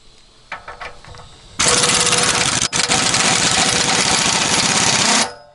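Impact wrench hammering hard for about three and a half seconds, with a brief break partway, undoing the 18 mm nut on a BMW E90's rear lower control arm. A few light clicks and knocks come before it.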